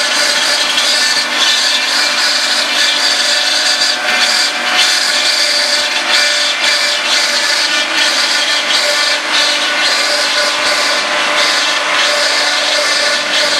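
Automatic silicone sealant tube filling and sealing machine running: a steady mechanical din with a low hum and a high hiss, broken by scattered clicks.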